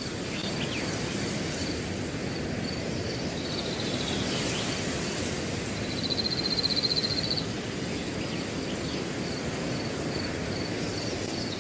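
Outdoor nature ambience: a steady rushing background with high, evenly repeated insect-like chirps throughout, a few short falling bird calls, and a louder trill about six seconds in.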